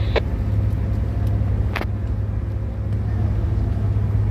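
Tugboat's diesel engine running with a steady low drone, heard from on deck. Two short sharp clicks sound over it, the louder one nearly two seconds in.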